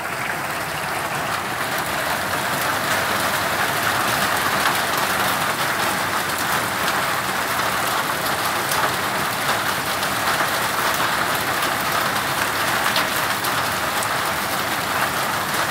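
Rain mixed with small hail falling in a hailstorm: a dense, steady patter with fine sharp ticks through it, growing a little louder over the first few seconds.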